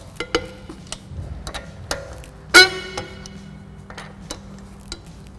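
Breaker bar and 19 mm socket clinking on a wheel's lug nuts, with light metal clicks and knocks. One loud, ringing metallic crack comes about two and a half seconds in as a lug nut is cracked free.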